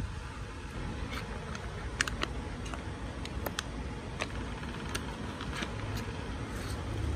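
Scattered light clicks and crinkles of a foil bag and cardboard box being handled, over a steady low rumble.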